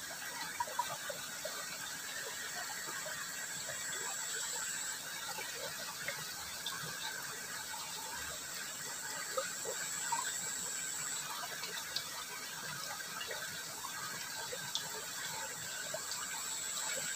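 Water running in a small, fairly swift ditch: a steady even rush with scattered faint ticks and gurgles, and a thin high whine that comes and goes.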